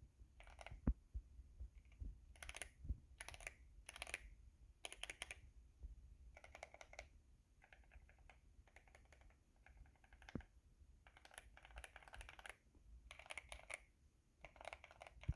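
Typing on a GMMK Pro mechanical keyboard with a polycarbonate plate, PBT keycaps and Gateron CJ linear switches, some lubed and some stock. The keystrokes come in short, irregular runs, fairly quiet.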